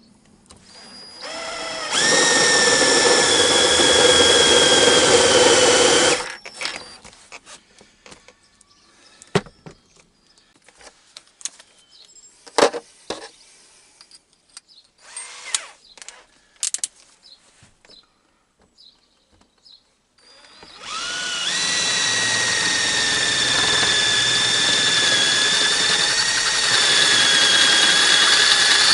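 Electric drill running in two long stretches, about five seconds and then about eight seconds, with a steady motor whine while drilling a house switch blanking plate. Between the runs, scattered clicks and knocks of handling.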